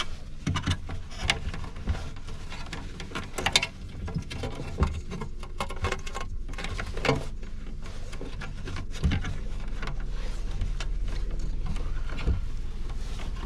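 Stiff insulated electrical wires being handled and pushed into a metal breaker box: scattered rustles, scrapes and light clicks of wire against wire and metal, over a steady low hum that grows a little louder about halfway through.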